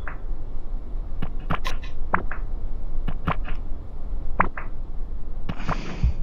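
Scattered small clicks and taps, several of them irregularly spaced, over a steady low hum, with a short breathy hiss near the end.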